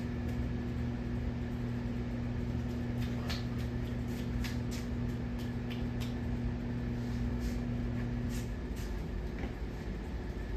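Hampton Bay Huntington III ceiling fan running with a steady motor hum, with a few light clicks in the middle; the hum cuts out about eight and a half seconds in.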